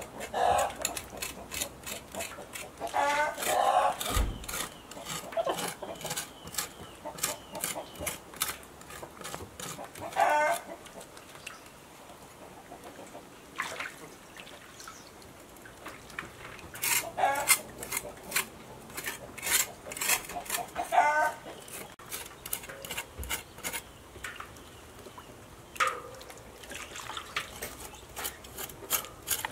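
Chickens clucking in short wavering calls several times, over runs of quick knife scrapes across blackened pork skin in a basin of water.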